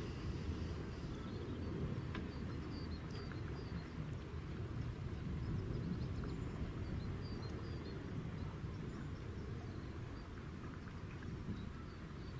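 Wind rumbling on the microphone outdoors, steady throughout, with faint bird chirps scattered over it.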